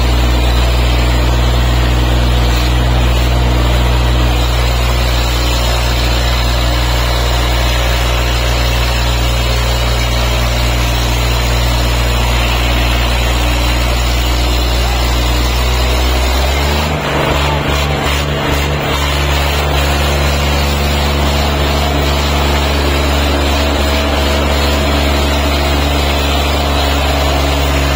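Tractor diesel engine running flat out under heavy pulling load, a steady deep drone; its note shifts abruptly a little over halfway through.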